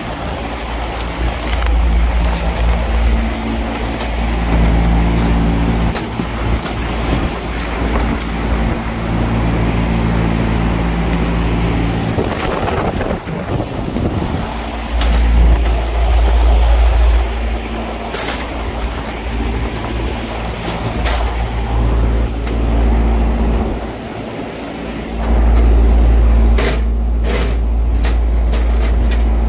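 Steady mechanical hum of running rooftop refrigeration condenser equipment, with a low rumble that swells and fades. A few sharp clicks of handling and tools come near the end.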